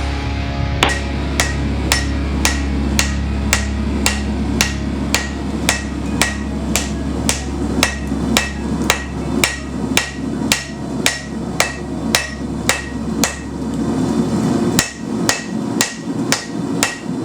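Hand hammer striking steel on an anvil in an even rhythm, about two ringing blows a second, with a short break near the end, over a steady low hum.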